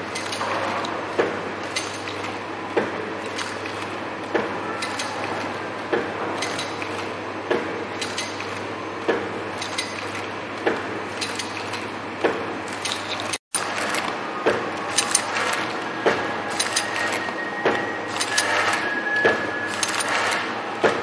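ATM-320L automatic liquid sachet packing machine running: a steady motor hum with a sharp clack about every second and a half as it cycles. After a brief gap in the middle the clacks come more often and less evenly.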